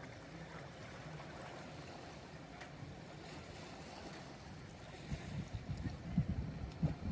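Faint, even hiss of a calm sea, with wind buffeting the microphone in low rumbling gusts from about five seconds in.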